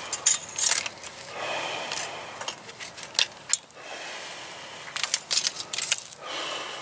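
Barbed wire being wrapped and twisted around itself by gloved hands: metal clicking and jingling, with several stretches of wire scraping on wire.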